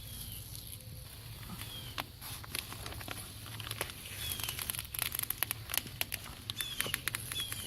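Irregular crackling of footsteps through dry leaves, growing busier about halfway through, with a bird giving short falling chirps every second or two.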